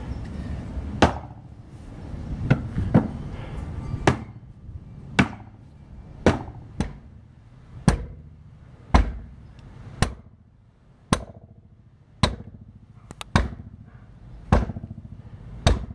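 Repeated sharp metallic strikes, about one a second, each ringing briefly, over a low rumble that fades after the first few seconds.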